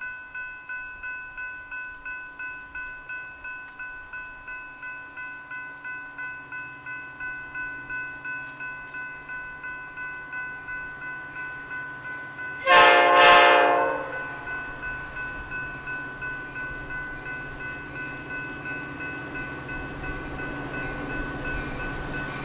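Railroad crossing bell ringing steadily, about three strokes a second. About halfway through, a train horn sounds one loud, short blast of about a second, and near the end the low rumble of an approaching train rises under the bell.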